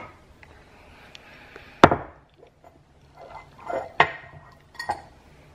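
Sharp knocks and light clatter of kitchen things being handled and set down on a counter while making coffee. The loudest knock comes about two seconds in, with more near four and five seconds.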